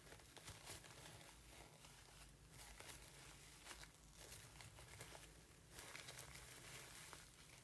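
Faint crinkling and rustling of a napkin-and-cotton squishy being wrapped in sticky tape.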